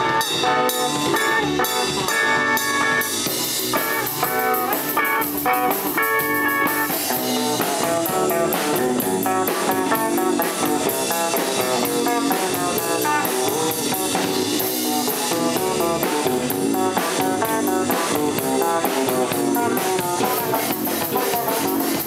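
Live band playing instrumental rock on electric guitar, bass guitar and drum kit, through amplifiers. About seven seconds in the music moves from held guitar notes to a denser section with steady drumming.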